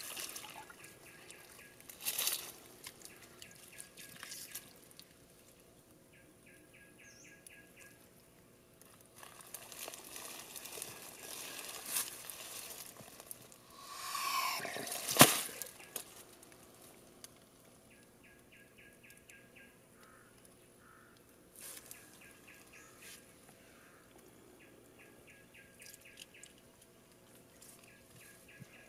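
Water poured and dripping from a bamboo tube over a soft-shelled turtle, with dry leaves rustling as the heavy turtle is handled and a sharp thump about fifteen seconds in. Short, evenly repeated insect trills come and go in the background.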